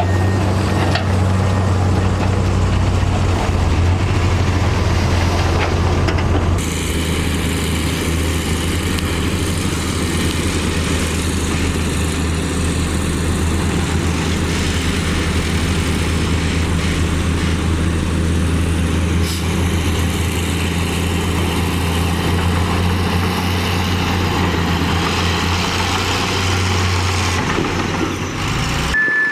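Heavy diesel earthmoving machinery running steadily, a loud, deep engine hum. The sound changes abruptly about six and a half seconds in.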